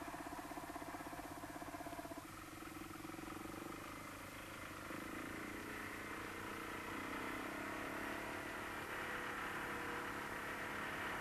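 Hanomag R12 tractor's small single-cylinder two-stroke diesel running steadily under load. It has a fast, even pulse for the first two seconds, then a smoother, steadier hum.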